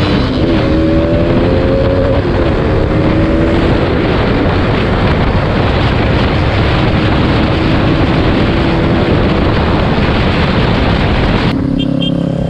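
Motorcycle engine running at road speed under heavy wind rush on the microphone, its note rising over the first couple of seconds and then holding steady. Near the end the wind noise falls away and a lower, steady engine note is left.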